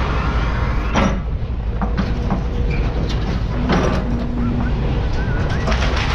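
Case trackhoe's diesel engine running steadily under load while the house's wooden structure cracks and crashes as it is torn down, with sharp cracks about a second in, near the middle and near the end.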